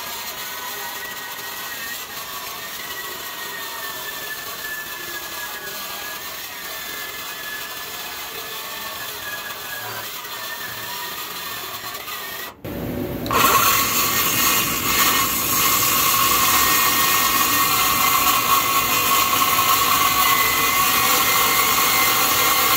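Milwaukee M18 Fuel cordless metal-cutting circular saw cutting through an old steel truck frame, a steady high whine. A little past halfway it breaks off for a moment and comes back louder.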